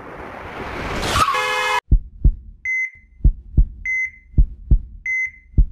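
A rising rush of noise ends in a harsh tone and cuts off suddenly about two seconds in. Then comes a heartbeat sound effect, double thumps a little over once a second, alternating with the short high beep of a hospital heart monitor.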